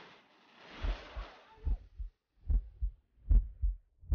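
Heartbeat sound effect: paired low lub-dub thumps, about one pair every 0.8 seconds, growing louder. It starts about a second in, as a noisy hiss fades out.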